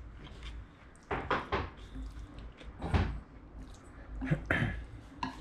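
Chopsticks knocking and scraping against a stainless steel bowl while mixing noodles: a few short clinks and taps, the loudest about three seconds in.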